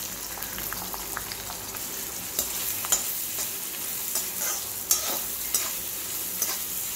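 Chopped onions sizzling in hot oil in a metal kadai, with a steady hiss, while a perforated metal spatula stirs them and now and then scrapes and taps against the pan.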